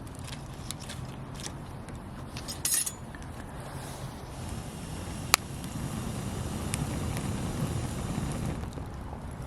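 Campfire wood crackling with scattered small pops, a short flurry of pops near the three-second mark and one sharp crack about five seconds in. A low rushing sound swells for a few seconds in the second half.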